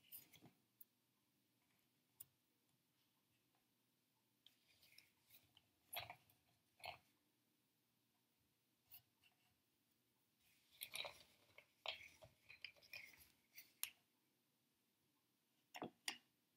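Faint, irregular clicks and snaps of wooden spring clothes pegs being pinched open and clipped onto the rim of a drinking glass, with a cluster of clicks from about eleven to fourteen seconds in.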